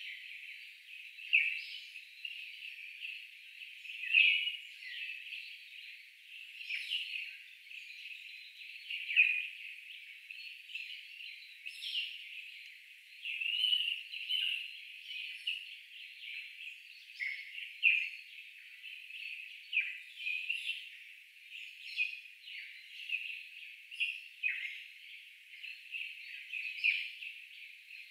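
Birds chirping: irregular short high calls, several a second, some sweeping downward.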